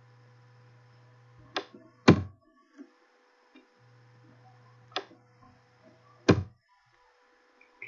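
Computer mouse clicks picked up as dull thunks: a lighter click and then a louder one about half a second later, and another pair about three seconds after that. A low electrical hum cuts in and out underneath.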